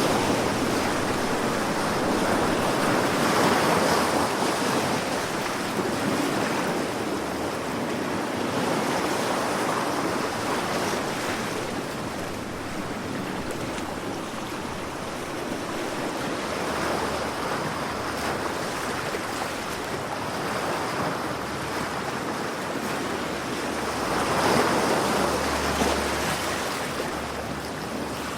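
Sea waves breaking and washing ashore in a continuous rushing noise that swells and subsides, with the biggest surges a few seconds in and again near the end.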